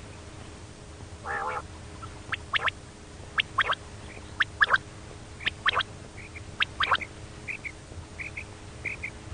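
Quail calling: a harsh buzzy call about a second in, then sharp three-note phrases about once a second, then soft high paired notes about twice a second near the end. A faint steady hum runs underneath.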